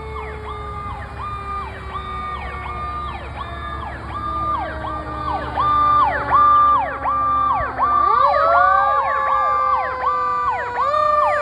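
Fire apparatus sirens on an emergency response: an electronic siren sweeping rapidly up and down about three times a second, together with a second, lower siren that slowly falls in pitch, then winds back up about 8 seconds in and again near the end. The sirens grow louder partway through.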